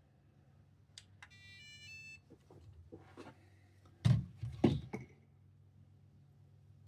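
Dumbo RC pistol-grip transmitter switching on: a click about a second in, then a short electronic beep tune of several quick stepping notes. After that come light handling clicks and two louder knocks around four seconds in.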